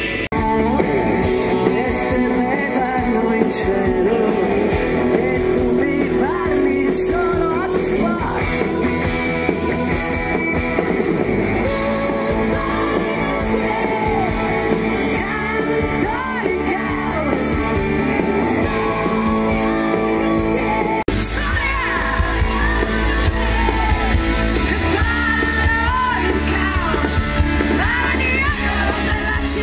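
Woman singing live into a microphone over a rock band. About 21 seconds in there is an abrupt cut, after which the bass is heavier.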